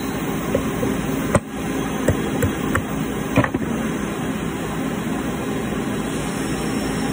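A handful of short metallic clicks and knocks between about one and three and a half seconds in, as an end mill and a CNC tool holder are handled, over a steady machine-shop hum.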